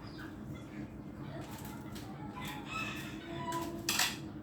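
A rooster crowing, with a short clatter near the end.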